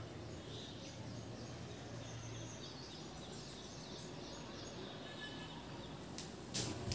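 Quiet room ambience with faint, scattered bird chirps from outside. A short, sharp sound comes just before the end.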